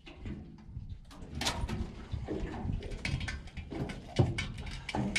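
A gaffed tuna being handled on an aluminium boat's checker-plate deck: irregular knocks and thuds of the fish and gaff against the metal, several sharp ones from about a second and a half in, over a low rumble.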